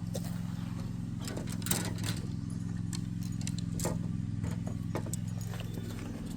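Footsteps over creek stones: irregular clicks and knocks of shoes on rock, over a steady low hum.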